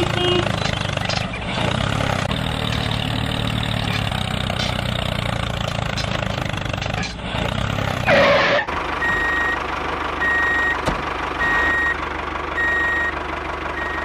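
Tractor engine running steadily, then a short whooshing sweep a little past halfway, followed by a reversing alarm beeping at one steady pitch, about once every second and a quarter.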